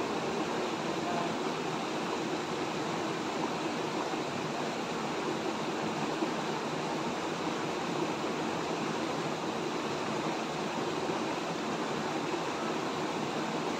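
Shallow, rocky mountain river rushing steadily over stones.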